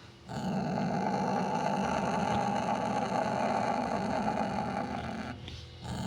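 Sumatran leopard cat growling: one long, low, rough growl that breaks off about five seconds in.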